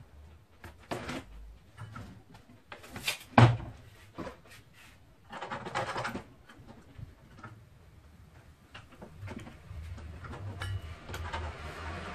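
Scattered knocks and clunks as a circular saw is handled and shifted on a wooden work table, the loudest knock about three and a half seconds in. The saw is not running.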